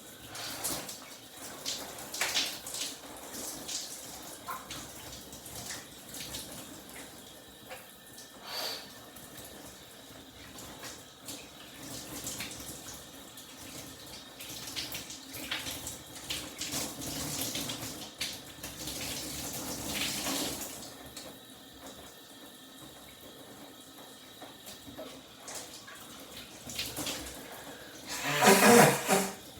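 Shower running: water spraying and splattering with scattered short splashes. A short loud burst rises over it near the end.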